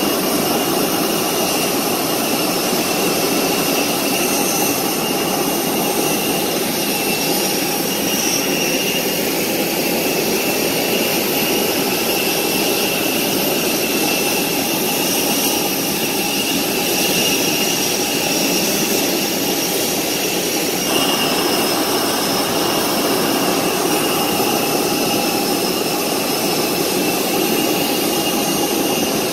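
Jet aircraft on the apron, a steady whine of several high tones over a constant rush. About two-thirds of the way through, the rush thickens a little.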